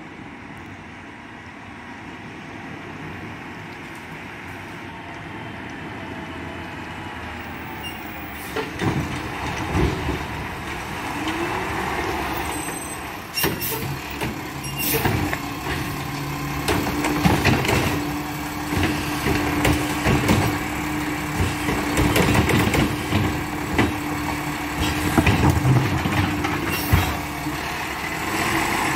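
Mack LR garbage truck with a Heil Freedom body: its diesel engine grows louder as it drives up, then, stopped at the curb, it gives a run of clanks, knocks and air-brake hisses, with a steady whine held for about ten seconds in the second half.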